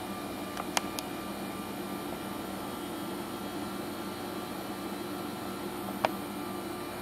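Steady low mechanical room hum, like a fan or air handling, with a few light clicks about a second in and one more near the end.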